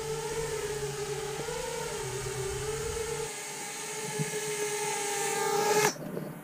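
FPV quadcopter's motors and propellers whining steadily, the pitch wavering gently with throttle. The sound cuts off suddenly about six seconds in.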